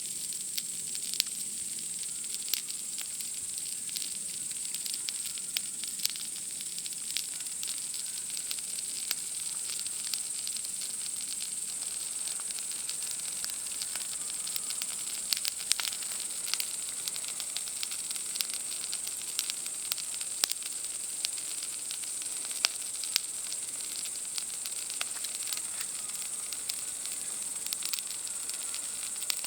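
Wood campfire crackling, with frequent sharp irregular pops, over a steady high-pitched chorus of night insects.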